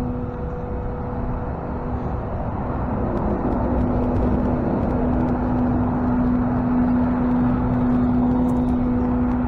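Tow truck running: a steady engine drone with a constant hum and road-like noise beneath, growing slowly louder over the first several seconds.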